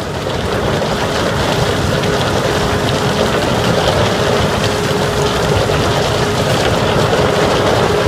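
Steady, dense rumble and rattle of ore pouring through a chute onto a vibrating screen deck, with a constant hum underneath, growing a little louder over the first second.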